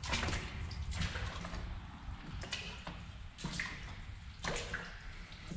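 Irregular steps and scuffs, roughly one a second, of someone moving on foot through a narrow concrete tunnel, over a low steady rumble.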